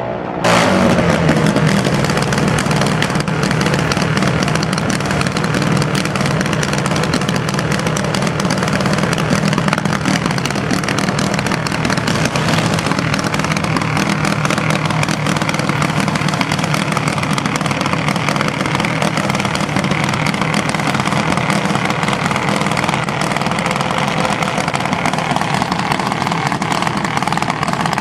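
Junior dragster's single-cylinder engine running steadily, with a loud, even rattle of rapid exhaust pulses and no revving.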